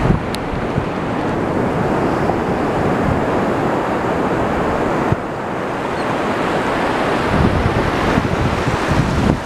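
Ocean surf washing steadily, with wind buffeting the microphone and low rumbling gusts late on.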